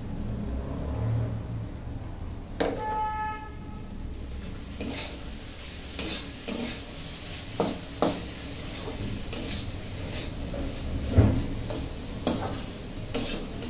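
A metal spatula stirring chopped vegetables in an aluminium kadhai, scraping and knocking against the pan at irregular moments, the loudest knock near the end. The vegetables sizzle lightly underneath.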